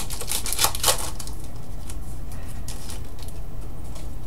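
Trading cards being handled and flipped through by hand: a quick run of crisp clicks and rustles in the first second, thinning to scattered ones after, over a steady low hum.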